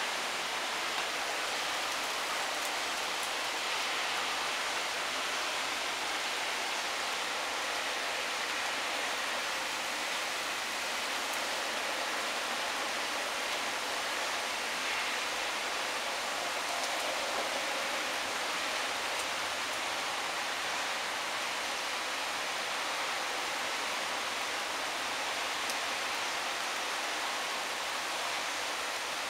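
Heavy rain pouring down in a cloudburst, a steady, even hiss of the downpour.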